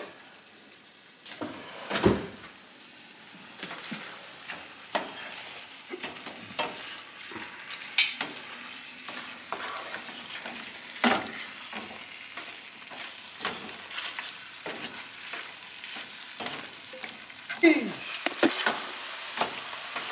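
Beef and broccoli frying in sauce in a stainless steel sauté pan, a steady sizzle from about a second in, while a spatula stirs and scrapes the pan with many short knocks against its sides.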